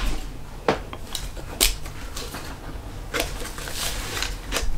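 Kodak Vest Pocket Autographic folding camera being closed up by hand: a handful of small, irregular clicks and scrapes as its metal parts are folded and pushed shut.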